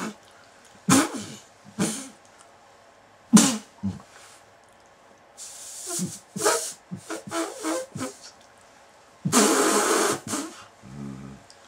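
A person's non-speech vocalizations during a prolonged orgasm, coming in irregular bursts: sharp breathy gasps, short wavering moans and cries, and one long, loud breathy cry about three quarters of the way through.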